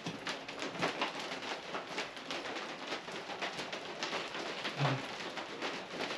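Steady rain pattering, with scattered small clicks of eating and plates at the table and a short low hum about five seconds in.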